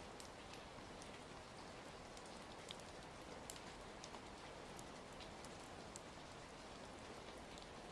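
Steady rain with scattered sharp crackles from a wood fire, an ambient rain-and-fireplace soundscape.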